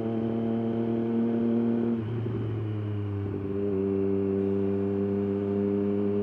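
Triumph Daytona 765's three-cylinder engine running under way. Its note holds steady, drops in pitch about two seconds in, then settles at a lower steady pitch.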